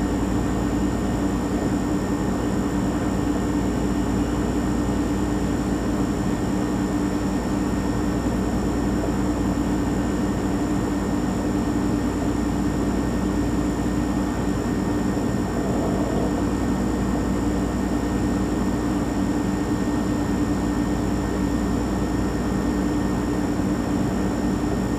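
Refrigerator compressor running with a steady, unchanging hum and a thin high whine above it.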